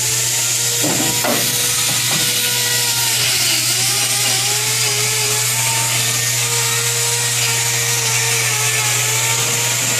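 Electric hand grinder with a hoof-trimming disc cutting cow hoof horn: a loud, steady grinding with a motor whine that sags in pitch about four seconds in as the disc bites, then steadies.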